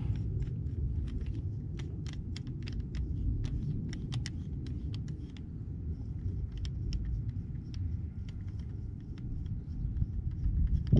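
Cartridges are pressed into a Glock 19 pistol magazine one after another, making an irregular run of small metallic clicks. A steady low rumble of wind on the microphone lies underneath.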